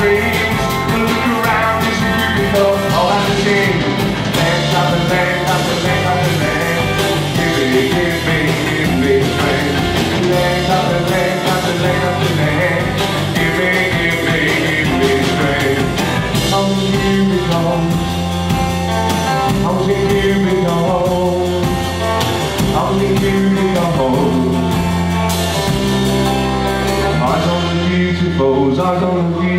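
Rock band playing live: two electric guitars, bass guitar and drum kit, with a singer's vocal over them.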